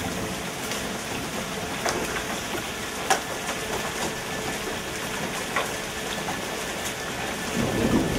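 Hailstorm: a steady hiss of hail and rain coming down, with scattered sharp clicks of hailstones striking.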